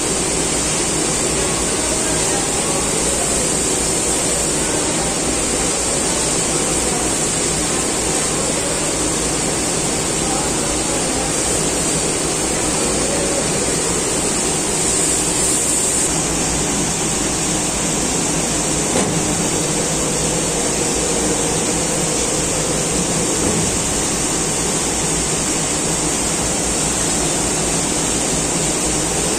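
Sample yarn warping machine running, its drum winding yarn: a steady, even mechanical noise with no beat and no sudden knocks.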